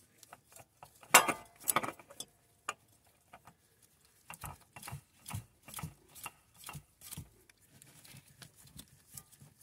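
Hands and tools clicking and knocking while the new hydrostatic transmission filter is fitted under the tractor. There is a louder clatter about a second in, then a run of light, irregular knocks.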